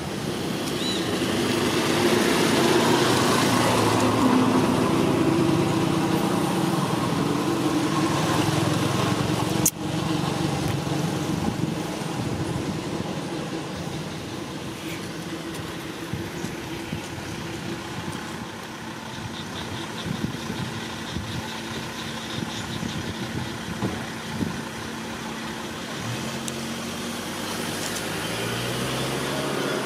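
A motor vehicle's engine running in the background, swelling for the first ten seconds and then easing off, with one sharp click about ten seconds in.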